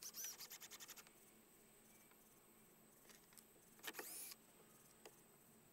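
Faint power drill driving screws into wood: a quick run of clicks in the first second and a short whir about four seconds in.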